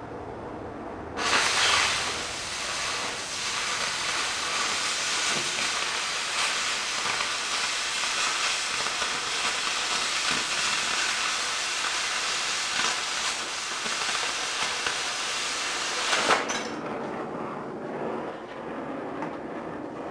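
Oxyacetylene cutting torch cutting steel plate. The steady hiss of the preheat flame jumps to a much louder, crackling rush about a second in as the cutting oxygen is turned on, runs steadily, then drops back to the quieter flame hiss about sixteen seconds in when the oxygen is shut off.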